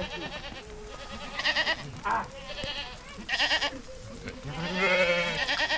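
Sheep bleating: about five calls from the flock, four short ones and a longer, louder one lasting about a second near the end.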